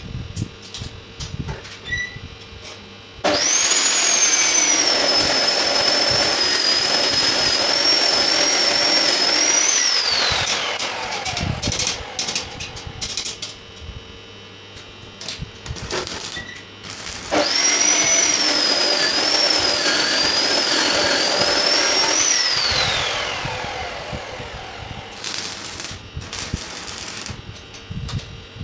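A high-speed electric power tool runs twice, each time switching on suddenly, running with a steady high whine for about five to seven seconds, then winding down as it is switched off. Between the runs, light clinks of steel flat bars being laid on a steel grill frame.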